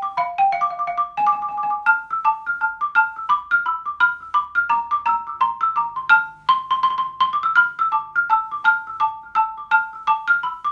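Xylophone played with mallets: a steady run of struck notes, about four a second, rocking back and forth between pairs of high notes in an even, unsyncopated rhythm.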